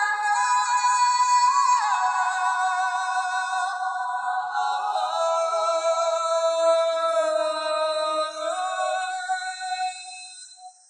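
Background music: held, high, voice-like synthesised notes that step slowly from one pitch to the next, fading out near the end.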